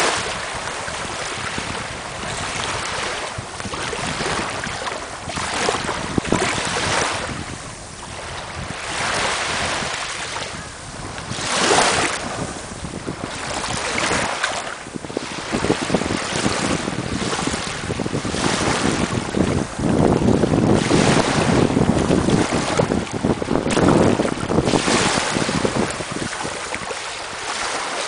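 Small waves washing in and out over sand at the water's edge, swelling every few seconds, with wind buffeting the microphone.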